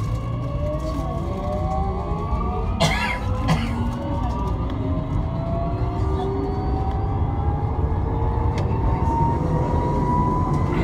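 Ui LRT UL000-series light-rail train pulling away and accelerating: electric traction-motor whine rising steadily in pitch over a low running rumble. Two sharp clicks come about three seconds in.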